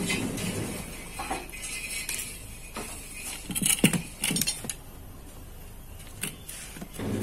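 Scattered metallic clicks and clinks from an unplugged angle grinder being handled by hand, its disc turned while the spindle-lock button is pressed; the lock does not catch. The loudest clicks come about four seconds in.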